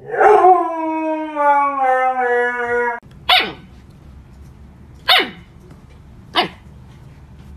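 An adult husky howls once in a long call that slowly falls in pitch and cuts off sharply after about three seconds. A husky puppy then gives three short yips, each falling quickly in pitch, about a second and a half apart.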